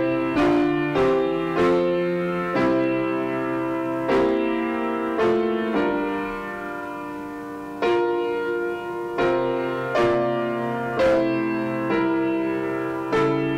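Grand piano played solo in a slow, classical style: chords struck about once a second, each ringing and fading before the next, with one chord held longer a little past the middle.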